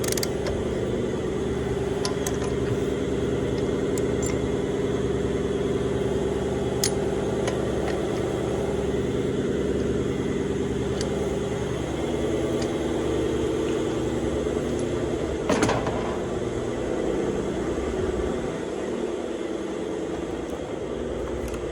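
Air compressor motor running with a steady hum, with a few sharp metal clinks. The hum shifts in pitch about halfway through and drops away somewhat near the end.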